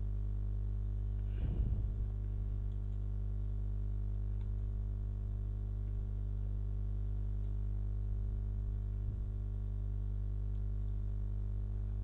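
Steady electrical hum on the recording, with a short cluster of faint clicks about a second and a half in and a few single faint clicks later.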